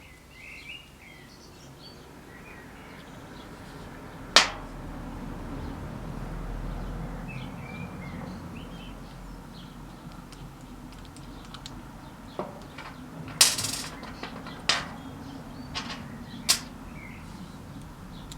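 A handful of sharp clicks and knocks, scattered over the second half, against a low hum that swells and fades, with faint bird-like chirps early on.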